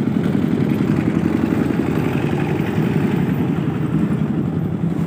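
A motor running steadily: a continuous low rumble with no breaks or changes.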